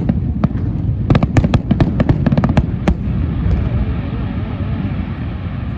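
Fireworks exploding: a rapid string of sharp cracks over the first three seconds or so, which then stop, leaving a steady low rumble.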